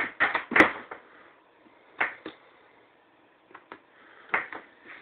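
A few scattered short knocks and clicks, several close together at the start, then single ones spread through the rest.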